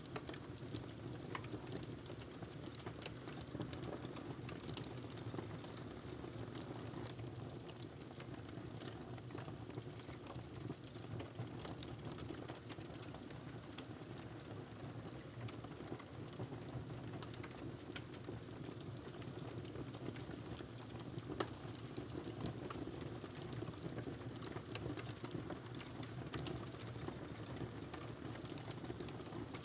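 Wood fire crackling in a fireplace: irregular small snaps and pops over a steady low rumble of the flames.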